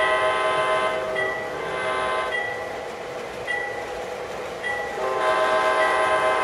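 Diesel horn and bell from the onboard sound system of an O gauge CSX Dash 8 model locomotive. The multi-note horn sounds, breaks off about a second in, and sounds again about five seconds in, while the bell rings steadily about once a second over a running rumble.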